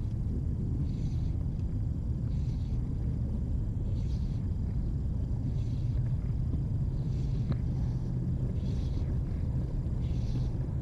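Steady low wind rumble on the microphone, with faint, irregular swishes now and then.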